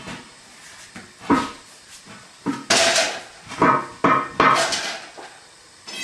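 A 22.5-inch truck tire being pushed by hand onto a one-piece steel wheel: several knocks and rubbing scrapes, the loudest near the middle, as the rubber bead bumps and drags against the rim lip.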